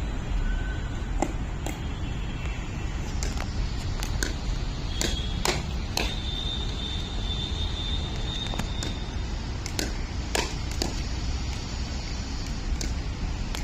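Pickleball paddles popping against a plastic ball in fast volleys: irregular sharp hits, some about half a second apart, over a steady low rumble.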